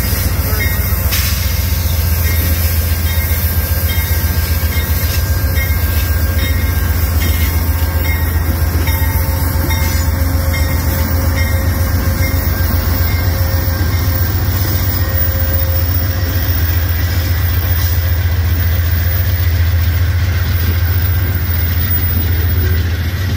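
Amtrak passenger train passing at speed: the GE P42DC diesel locomotive goes by, then its double-deck Superliner cars roll past on the rails with a steady heavy rumble.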